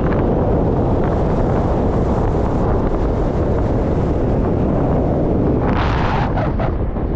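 Wind rushing and buffeting over the microphone of a camera on a moving car, with road noise underneath. A few sharper gusts come near the end.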